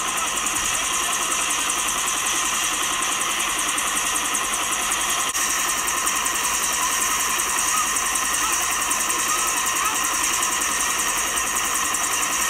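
Bell UH-1D Huey helicopter's turbine engine running on the ground, a steady whine and rush.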